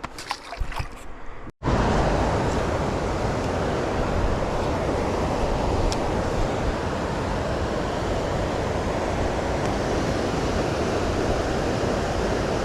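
A few faint handling clicks, then after a short break a loud, steady rush of creek water running over rocks.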